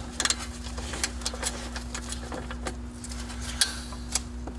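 Irregular metallic clicks and clinks of a ratchet and socket being worked onto a brake caliper bracket bolt, over a steady low hum.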